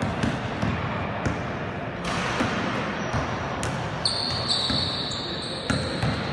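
Basketball being dribbled on a hard court, a run of repeated thuds, with sneakers squeaking on the floor in several long high squeals from about four seconds in.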